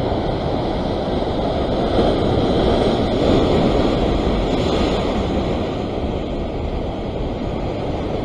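Surf breaking and washing over the rocks with wind on the microphone, a steady rushing that swells about two seconds in and then eases.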